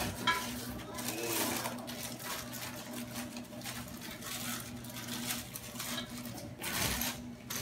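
Plastic wrapping crinkling and rustling as the drill press parts are handled in their bags, with many irregular crackles, over a faint steady low hum.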